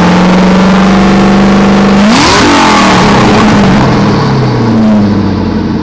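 Whipple-supercharged Ford GT's 5.4-litre V8 held at high revs, then a sharp burst of noise about two seconds in as the revs fall away. A short blip near the end before it settles lower, heard close to the twin exhaust tips.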